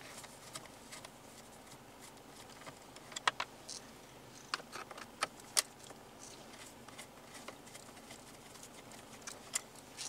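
Scattered light clicks and taps of hand work at a car's steering column: a screwdriver and small Phillips screws against the plastic column trim around the clock spring.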